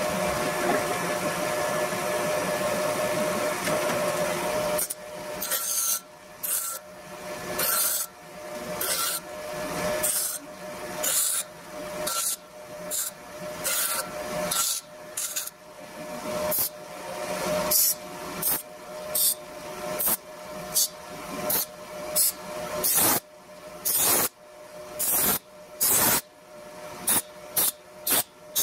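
Bench grinder running with a steady motor hum while small aluminium sheet-metal tabs are pressed against the wheel again and again. The hissing grinding strokes come about one a second, each building up and then cutting off sharply as the piece is lifted away.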